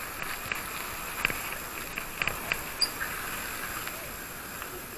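Bicycle being ridden over a rough dirt lane: a steady hiss of riding noise with light clicks and knocks scattered through it.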